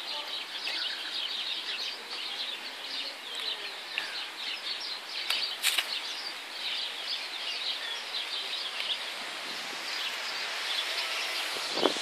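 Steady chorus of small birds twittering, many short high chirps overlapping, with two sharp clicks about five and a half seconds in and a knock near the end.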